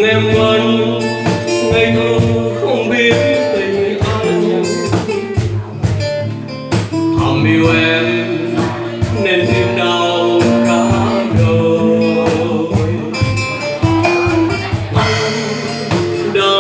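Live acoustic ballad: a man sings a Vietnamese song into a microphone over a strummed acoustic guitar, with a steady percussive beat.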